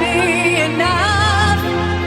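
Music: a pop ballad with a singer holding long notes with vibrato over a sustained backing.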